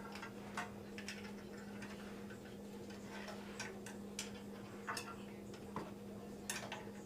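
Scattered small clicks and taps at an uneven pace, from computer parts being handled and fitted into a PC case, over a steady low hum.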